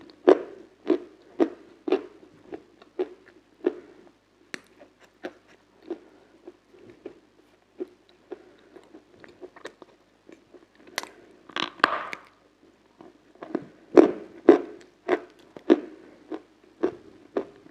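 Close-miked crunchy chewing of hard ice cream, about two sharp crunches a second, fainter for a while in the middle. There is a longer scraping, rustling sound about twelve seconds in.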